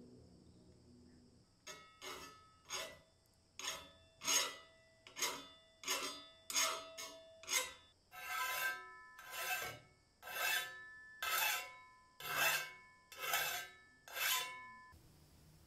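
A hand file scraping along the edge of a steel plate from an antique Fermat tile cutter, in about fifteen strokes at roughly one a second, filing down surface imperfections. From about halfway on the strokes are longer, and the plate rings faintly under them.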